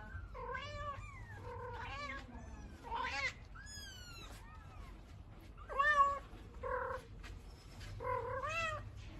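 A cat meowing over and over: about a dozen short, high calls, each bending up and then down in pitch, with a short pause near the middle.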